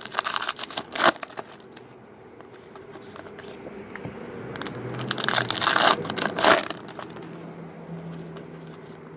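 Trading card pack wrappers crinkling and being torn open, in two spells of crackly tearing: one in the first second and a longer one from about four and a half to nearly seven seconds in.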